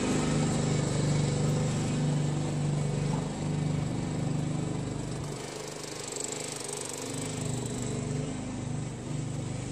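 Riding lawn tractor's small engine running steadily as the tractor drives away, growing gradually fainter.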